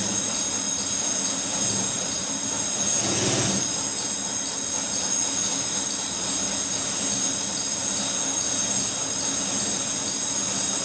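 Steady background hiss with a constant high-pitched electrical whine and a faint low hum, swelling briefly about three seconds in.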